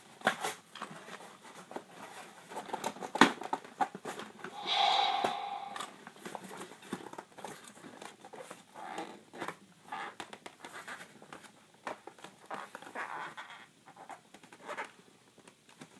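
Cardboard toy box and its packaging being pulled, torn and rattled by hand in a string of scattered rustles and clicks, as a boxed toy is forced out of it. A sharp knock comes about three seconds in, and a short squeak about five seconds in.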